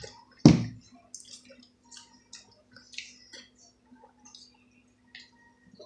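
One sharp knock about half a second in, then scattered faint clicks and taps from handling a food container and a plastic water bottle at the table, over a faint steady hum.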